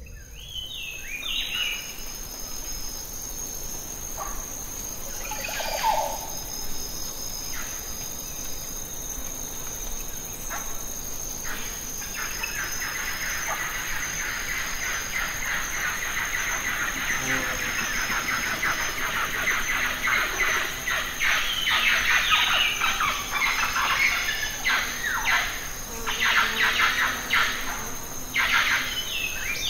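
Birds chirping and twittering, a few calls at first and then a dense, busy chorus building from the middle on, over a steady high-pitched background tone.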